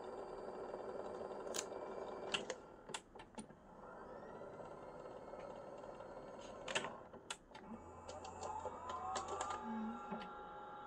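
Alesis ADAT Blackface's S-VHS tape transport shuttling, whirring steadily while it winds the tape, with clusters of mechanical clicks and clunks as the mechanism switches between fast-forward and rewind. A rising whine comes in near the end as the tape speeds up again.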